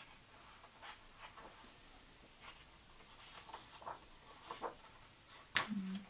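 Paper instruction booklet pages rustling faintly and softly flapping as they are turned and handled. Near the end, a short hummed 'mm' from a voice.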